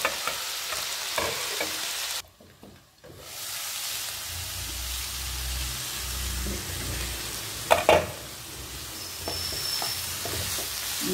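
Broccoli and mushrooms sizzling in a frying pan, stirred with a spatula. The sizzle drops out briefly about two seconds in, and there is a sharp knock near eight seconds in.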